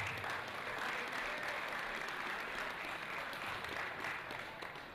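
Crowd applauding, a steady patter of clapping that starts to die down near the end.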